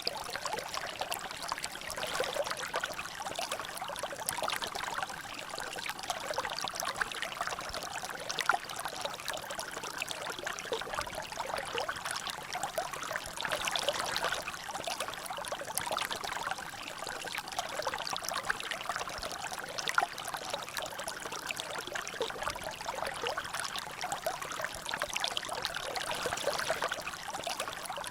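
Water trickling and dripping in a small natural drainage, a steady splashing patter made of many small drops, with a couple of sharper drops standing out.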